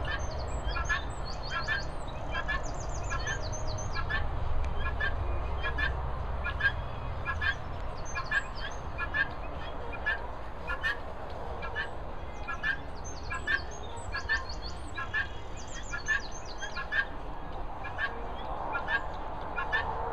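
Helmeted guineafowl calling with short, harsh, repeated notes, about two a second.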